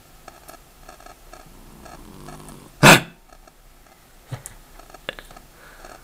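Sleeping cat snoring: a low buzzing snore on the in-breath about two seconds in, then one loud, short snort, the loudest sound. A couple of fainter snuffles follow later.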